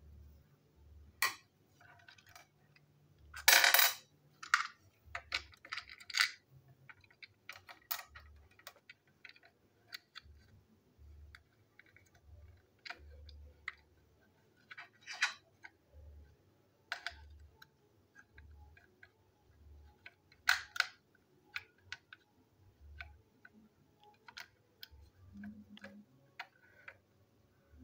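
Irregular small plastic clicks, taps and rattles from handling a plastic toy train engine and its small parts on a desk, with a longer, louder rattle about three and a half seconds in.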